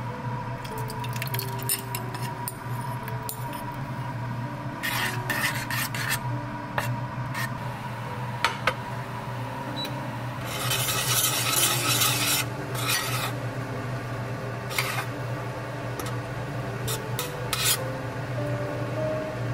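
Metal spoon stirring and scraping sauce in a small stainless steel saucepan, in short bouts with the longest, densest scrape about ten seconds in.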